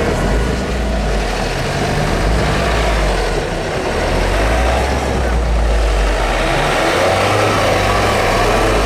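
Car engine running hard under load, its revs shifting up and down, as the car is driven through deep snow.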